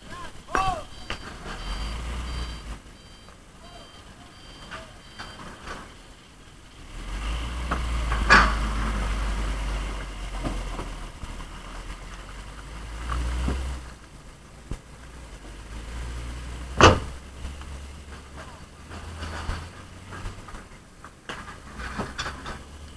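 Hino Ranger 500 dump truck's diesel engine pulling away through mud, a low rumble that swells for several seconds from about a third of the way in. A run of high, evenly spaced beeps sounds in the first few seconds, and two sharp bangs ring out, the louder one about two thirds of the way through.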